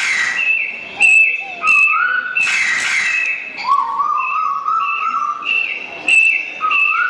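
Whistle-like sound effects from a mime act's backing track: a short high note with a slight downward slide repeating about twice a second, slower rising whistle glides and one long gliding tone in the middle, with a hissing whoosh about two and a half seconds in and a few sharp clicks.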